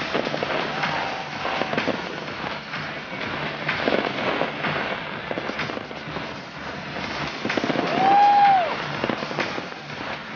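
Fireworks bursting in quick succession with crackling bangs. About eight seconds in there is a short whistle-like tone that rises and falls, the loudest moment.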